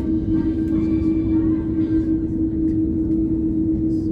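Airliner cabin noise while taxiing: a steady low rumble with a constant hum.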